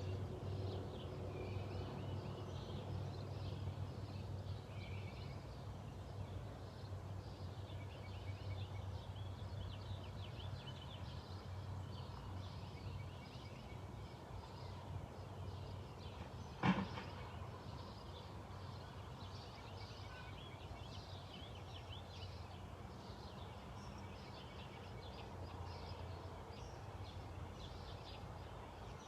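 Small birds chirping and twittering continually over a steady low hum, with a single sharp knock a little past halfway.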